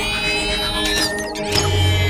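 Synthesized sci-fi sound effect: a layered electronic drone with slowly falling high tones. It briefly drops out with a downward sweep, then a deep bass hit comes in about a second and a half in.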